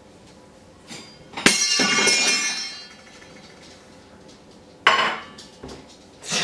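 Clinks and clatter of a metal spice tin and its lid: a sharp knock about a second and a half in with about a second of ringing rattle, then another sharp clink that fades, and more clatter starting at the very end.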